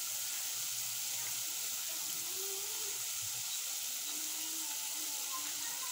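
Small pieces of sweet dough (Ugandan daddies) deep-frying in hot oil: a steady sizzling hiss.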